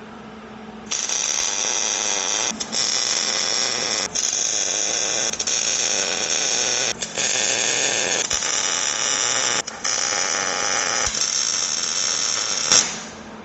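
Wire-feed (MIG) welder arc crackling and hissing as the steel truss is tack-welded onto a Dana 60 front axle housing. It starts about a second in, breaks off briefly several times between welds, and stops shortly before the end.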